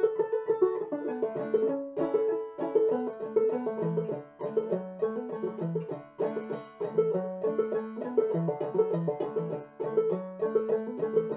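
Solo open-back five-string banjo played clawhammer style: an old-time fiddle tune in the key of D, with a high drone note struck again and again between the melody notes.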